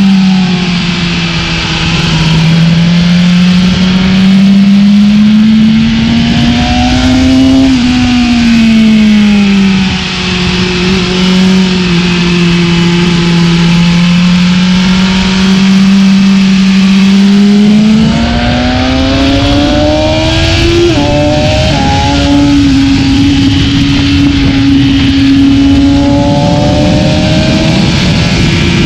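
BMW S1000RR's inline-four engine heard onboard at track pace. Its pitch rises under acceleration and falls back when the throttle is rolled off, several times. About three-quarters of the way through it drops sharply on an upshift and then holds a steady high pull.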